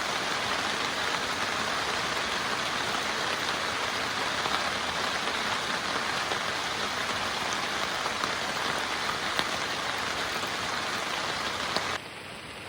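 Heavy rain falling with a steady, even hiss. Near the end it cuts off abruptly to a much quieter sound.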